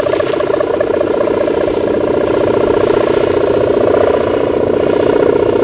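Sendaren, the Javanese kite hummer, on a large flying kite: a bow strung with a tuned plastic mika ribbon vibrating in the wind. It gives a loud, steady buzzing drone, the 'gerr' sound, with a fast rattle running through it.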